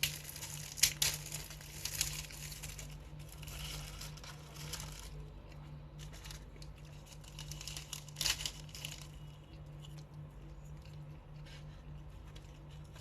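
Paper food wrapping crinkling and tearing as it is handled, in bursts during the first few seconds and again briefly near the eight-second mark, over a steady low hum.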